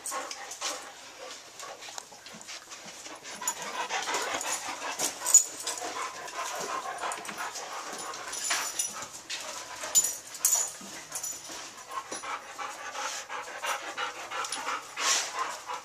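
A dog panting steadily close by, with a few sharp clicks, the loudest about five and ten seconds in.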